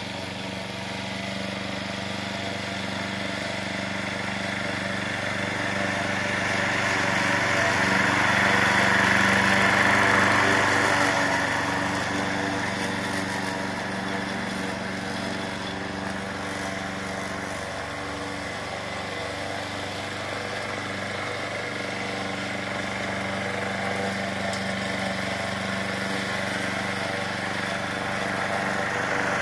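Small gasoline engine of a remote-controlled walk-behind lawn mower running steadily while mowing grass. It gets louder about a third of the way through as the mower comes close, fades, then rises again near the end.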